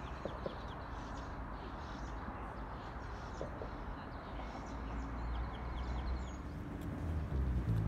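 Outdoor ambience: small birds chirping faintly and repeatedly in trees over a steady hiss, with a low rumble that grows louder toward the end.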